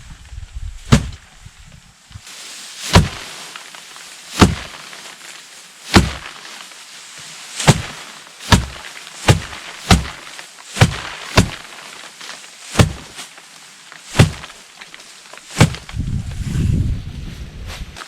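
A series of sharp, hard strikes, about a dozen, coming roughly once a second at an uneven pace, with a short low rumble near the end.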